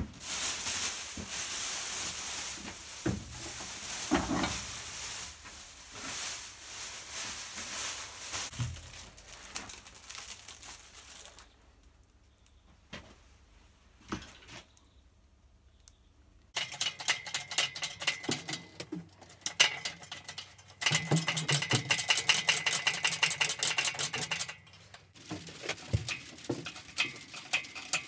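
Plastic wrapping and polystyrene packing crackling and rustling as they are handled and pulled out of a wooden crate, through the first ten seconds or so. After a quiet spell, rapid regular ratcheting clicks start about halfway through and are loudest a little past two-thirds of the way in: a hoist taking up the lift on a bench lathe slung from its hook.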